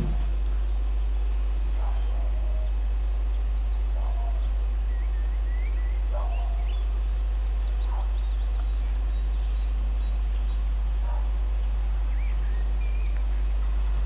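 Steady low rumble with small birds chirping faintly and intermittently over it.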